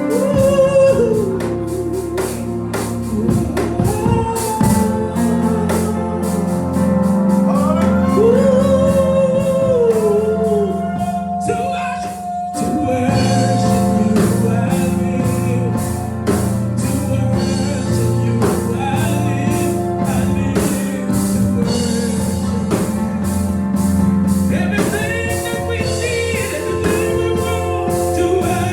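Live gospel music: a singer's voice over instrumental backing with a steady drum beat.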